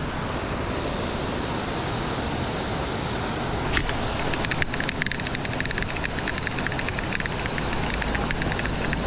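Steady rush of a creek waterfall; about four seconds in, a fishing reel starts clicking rapidly with a high whir as the line is wound in on a biting fish.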